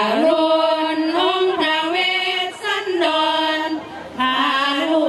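Female voices singing Thai sarabhanya, an Isan Buddhist devotional chant-song, without instruments. The melody moves in long held notes that step and glide in pitch, breaking off briefly twice.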